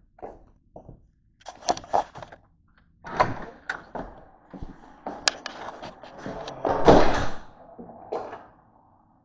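A couple of light flip-flop footsteps, then a door being handled: knocks, clicks and rattles, with a longer rushing scrape about seven seconds in that is the loudest part.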